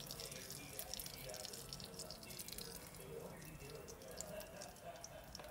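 Pan of hot frying oil crackling faintly, with scattered small pops and ticks as oil drips off fried egg rolls lifted out with tongs.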